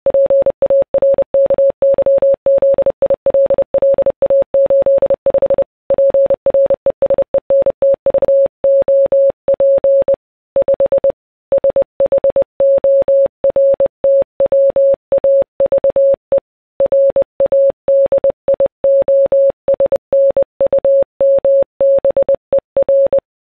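Morse code: a single steady beep tone keyed on and off in short and long elements at a quick, even pace, broken by a few longer pauses.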